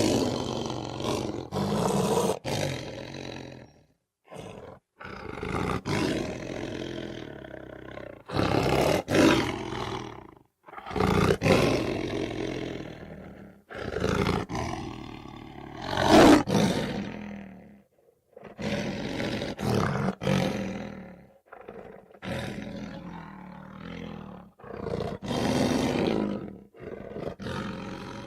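A run of separate big-cat roars from lion and puma sound-effect recordings, each one to three seconds long, with sudden cuts to silence between them; the loudest comes about halfway through.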